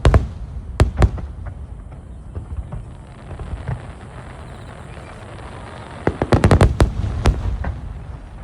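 Aerial fireworks shells bursting: a few sharp bangs in the first second, a stretch of lower rumbling, then a quick volley of bangs about six seconds in and one more shortly after.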